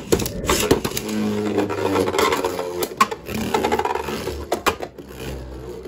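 Two Dynamite Belial Beyblade spinning tops ripped from their string launchers into a plastic stadium. They then spin with a steady whir, with several sharp clacks of impacts along the way.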